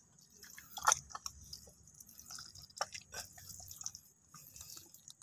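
Faint wet squelches and clicks of soft mud being disturbed, with a few sharper clicks about a second in and near three seconds.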